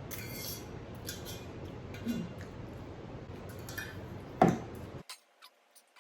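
Close-miked eating of black bean noodles: chewing and mouth sounds with small clicks and clinks of a utensil against the bowl, and one sharper, louder click about four and a half seconds in. The sound cuts out suddenly about a second before the end.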